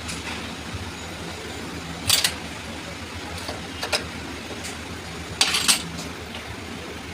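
Workshop background: a steady low engine-like hum with a few sharp metallic clinks, one about two seconds in, one near four seconds and a pair around five and a half seconds.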